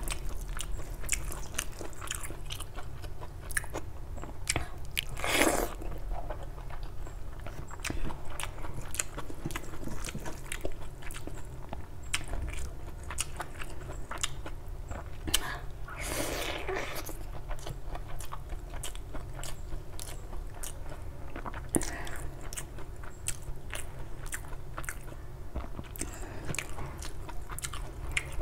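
Close-miked mukbang eating sounds: chewing and biting of egg curry and rice eaten by hand, a steady run of small wet mouth clicks. Two longer, louder noises stand out, about five seconds in and again a little past halfway.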